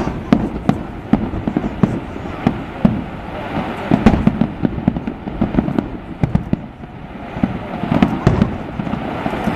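Aerial fireworks display: many bangs in quick succession with crackling between them, loudest about four and eight seconds in.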